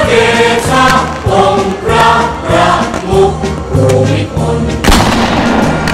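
Choral music with singing voices, loud, with firework bangs and crackle mixed in; one sharp firework bang near the end.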